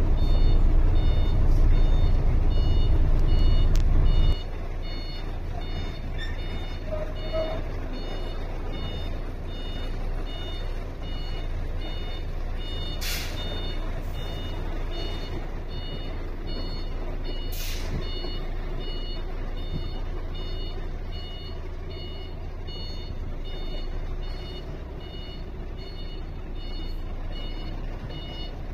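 Truck's reversing alarm beeping steadily as the tractor-trailer backs up, over the diesel engine running low; the engine is loud for the first four seconds, then drops to a quieter idle. Two short bursts of hissing air come about halfway through.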